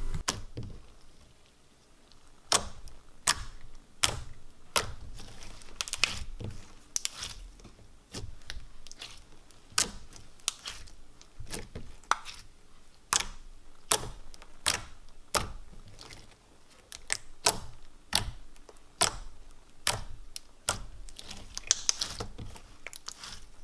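Thick, creamy slime with foam beads being kneaded, squeezed and stretched by hand, giving irregular sharp clicks and pops.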